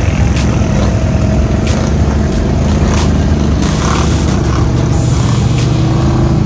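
ATV engines running under load as the quads drive into a creek. Water splashes and sprays a little past halfway through.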